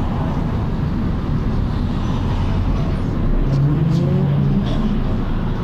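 Volvo B10BLE single-decker bus running, its engine and very loud cooling fan making a steady drone. A low hum rises for about a second past the middle.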